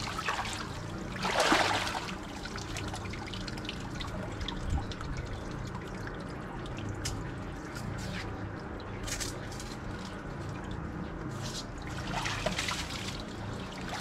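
Muddy water sloshing and trickling, with a louder splash about a second and a half in and again near the end, and scattered small sharp clicks in between.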